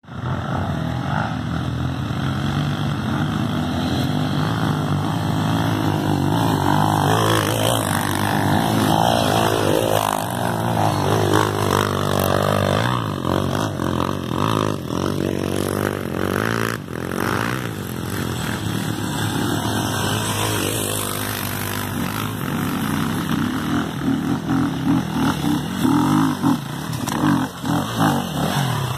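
Dirt bike engine running and revving, its pitch rising and falling repeatedly, with short, choppy throttle bursts near the end.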